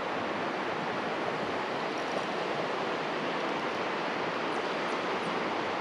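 A steady, even rushing hiss with no distinct events, and a few faint high ticks.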